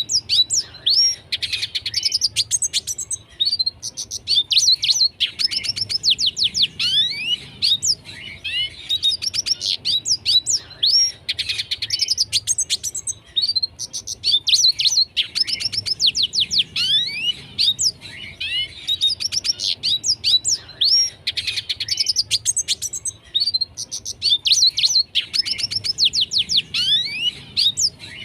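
Red siskin singing a long, fast twittering song of rapid chirps and quick falling whistled notes. The song comes in phrases with short breaks every few seconds.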